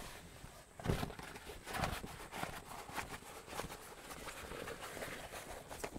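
Heavy canvas tent window flap being rolled up by hand: faint rustling and handling of the fabric, with a few soft taps.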